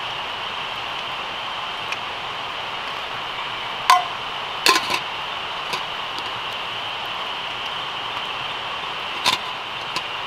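A spoon clinking against a plate a few times: once about four seconds in, twice just before five seconds, and once more near the end. Under it, a steady high-pitched chorus of night insects.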